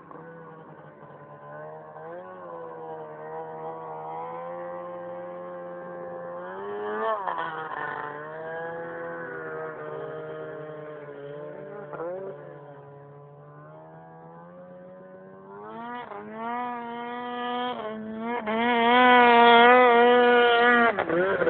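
Arctic Cat M1000 snowmobile's two-stroke engine running at a distance, its pitch rising and falling with short blips of throttle. About two-thirds of the way through it grows much louder and holds high revs as the sled climbs toward the camera, with one sharp drop in revs near the end.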